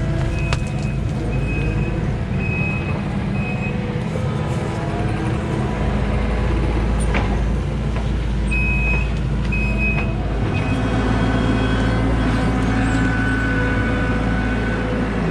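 Skid steer loader's diesel engine running hard under load as it works, with a backup alarm beeping in short runs near the start and again about two-thirds of the way through; the engine note changes pitch a little after that.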